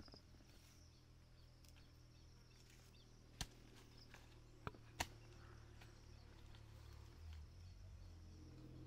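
Near silence broken by three sharp knocks, one about a third of the way in and two close together about halfway through.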